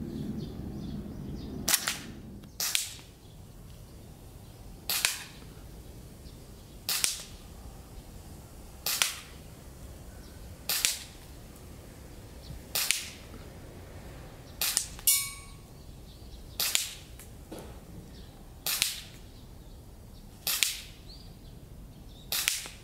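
Tokyo Marui HK45 gas blowback airsoft pistol with a metal slide, fired on Marui normal gas: about a dozen single shots roughly two seconds apart, each a sharp crack followed closely by the slide cycling.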